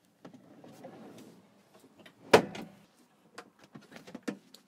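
Campervan cab seat being swivelled round on its turntable base: one loud clunk about halfway through, then several lighter clicks and knocks.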